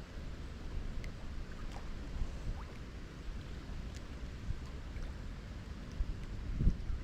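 Wind rumbling and buffeting against the microphone, with a few faint ticks.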